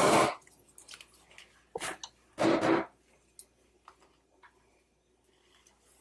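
Plastic Minion Play-Doh toys being handled on a tabletop: a short louder knock right at the start and another about two and a half seconds in, then a few light clicks.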